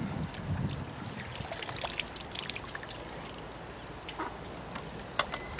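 Water trickling and dripping, with scattered small splashes.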